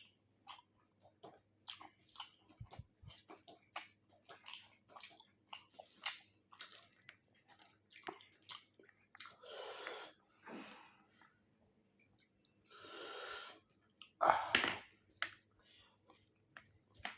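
Close-up chewing and lip-smacking of a person eating chicken curry with rice: a steady run of short wet clicks. Two longer hissing breaths or slurps come a little past the middle, and a louder one near the end.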